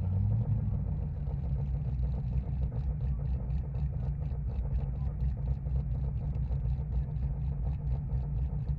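Car engine running steadily with a low exhaust sound and a quick, even pulse to it.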